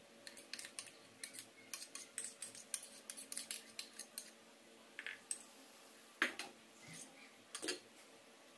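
A metal utensil clinking and scraping against a bowl and plate while stiff beaten egg whites are scraped out onto chocolate mixture. A quick run of sharp clicks for about the first four seconds, then a few scattered single clicks, the loudest about six seconds in.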